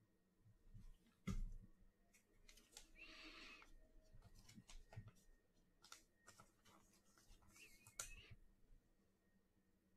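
Near silence with faint handling of trading cards: a few light clicks and taps as cards are set down and picked up, and a short papery rustle about three seconds in.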